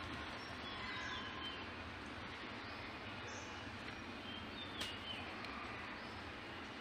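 Outdoor background noise with a few faint, short bird chirps scattered through it.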